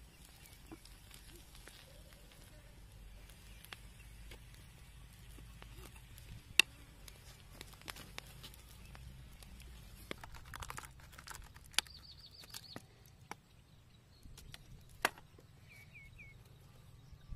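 Bamboo tube of egg cooking over campfire embers: sparse crackles and sharp pops over a steady low background rumble, with a few faint bird-like chirps near the end.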